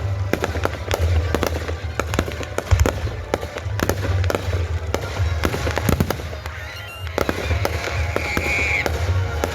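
Consumer fireworks going off in rapid succession: many sharp bangs and crackles close together, with no let-up.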